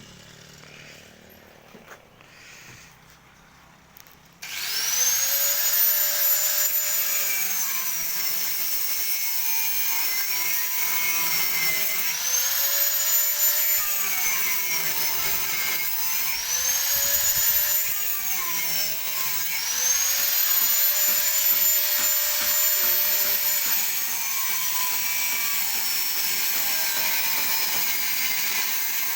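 Electric angle grinder, quiet for the first few seconds, then switched on about four seconds in and cutting metal: a loud high whine that dips in pitch each time the disc bites and climbs back as it frees, over and over.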